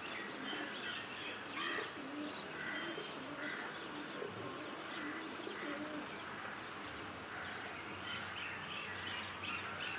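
Doves cooing in short, low, repeated phrases, with small birds chirping higher up. A rising tone sweeps in near the end.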